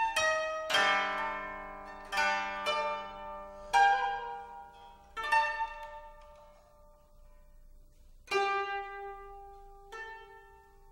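Solo koto (Japanese long zither) being plucked in a slow, sparse passage: single notes and chords struck one at a time, each left to ring and die away. About eight plucks, with a pause of two to three seconds before the last two.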